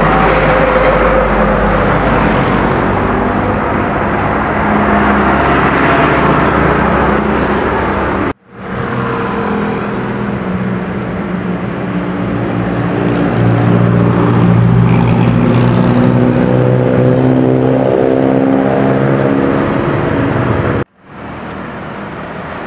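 Roadside traffic: motor vehicle engines running and passing, with a low rumble at first. In the middle comes a steady engine drone that rises slowly in pitch. The sound drops out abruptly twice.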